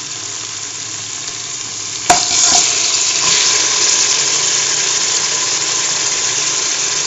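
Hot oil and onions sizzling in a pressure cooker. About two seconds in there is a sharp knock as raw mutton pieces go into the pot, and the sizzling is louder from then on.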